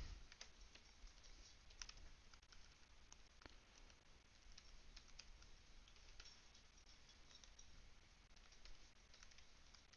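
Faint computer keyboard typing: irregular, scattered key clicks.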